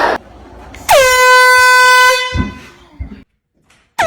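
An air horn blast about a second in, lasting about a second and a half. Its pitch drops quickly at the start and then holds steady. Another higher-pitched blast starts right at the end.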